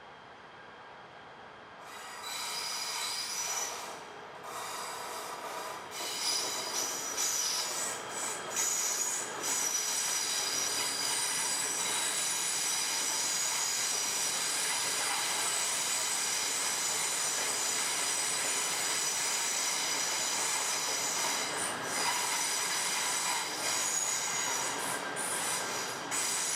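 KTMB train's brakes squealing as it slows into the station: a loud, shrill squeal of several high pitches at once that starts about two seconds in, wavers briefly, then holds steady and cuts off suddenly near the end.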